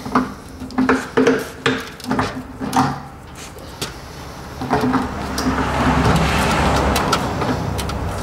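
Metal knocks and clanks of channel-lock pliers working a stuck fitting on a gas water heater, followed about halfway through by a steady rasping scrape of metal on metal lasting a few seconds.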